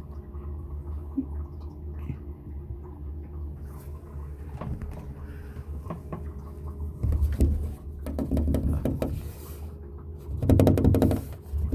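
A cat clawing and batting at a door gap: scattered scratching and tapping over a steady low hum. It grows louder and busier in the second half, with a fast run of rattling clicks near the end.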